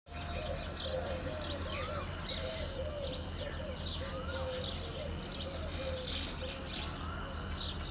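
Birds chirping and calling outdoors: many quick high chirps, a short rising-and-falling call repeating every two to three seconds, and a lower wavering call through the first six seconds, over a steady low rumble.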